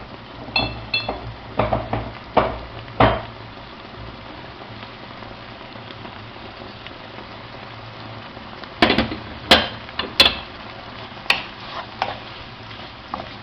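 Kitchen utensil clinking and scraping against a frying pan as rice is tipped in and stirred into hot oil. A few sharp clinks in the first three seconds, one pair with a brief ringing, then another cluster of knocks and scrapes about nine to twelve seconds in.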